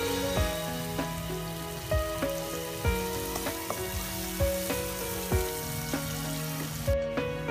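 Diced chicken, garlic and chilli sizzling in hot oil in a wok, stirred with a wooden spatula, under background music with a steady beat.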